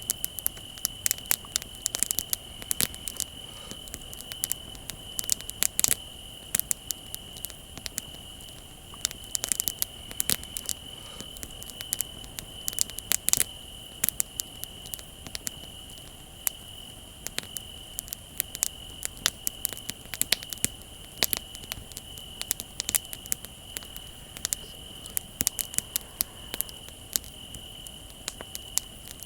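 Wood bonfire crackling, with irregular sharp pops and snaps, over the steady unbroken trill of crickets.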